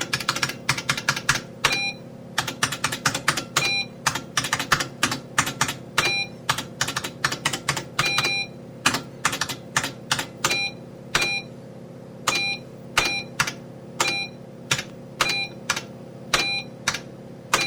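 Computer keyboard typing in quick runs of keystrokes, with short electronic beeps falling on some of the strokes. About halfway in the typing thins to single keystrokes about half a second apart, most of them with a beep. A steady low hum runs underneath.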